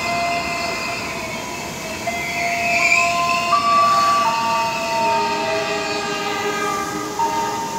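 Electric commuter train running past on the nearby track: a steady rumble of wheels and cars, with several whining tones that step up and down in pitch.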